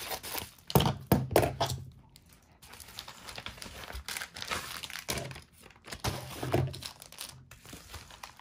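A mail package being torn open by hand: paper and plastic crinkling and tearing, with a few thumps as it is handled on the table, the loudest about a second in and again around six seconds in.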